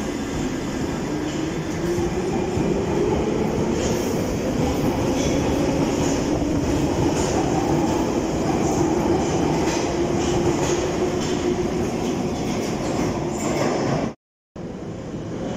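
Piccadilly line 1973 Tube Stock train pulling out of the platform and accelerating into the tunnel. Its traction motors make a tone that rises gently in pitch over a steady wheel-and-rail rumble. The sound drops out completely for a moment near the end, then resumes.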